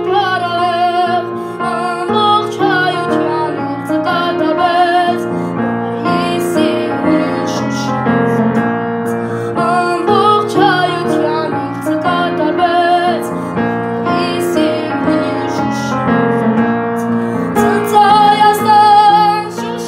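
A boy singing in a high voice with a wavering vibrato while accompanying himself on piano; the singing grows louder near the end.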